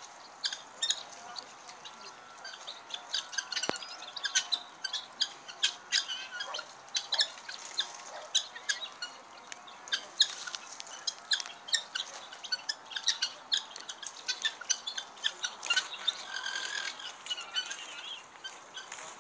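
A chorus of birds chirping and squawking: many short, high calls in quick, irregular succession.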